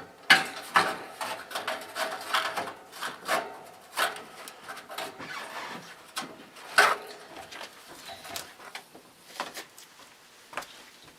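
Metal grille being unclipped and worked off a 1950s General Electric box fan: a string of clicks, clanks and scrapes, the sharpest near the start and about seven seconds in.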